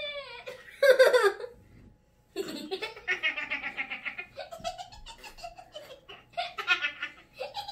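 Children laughing and giggling in short, choppy bursts, after a loud exclamation about a second in.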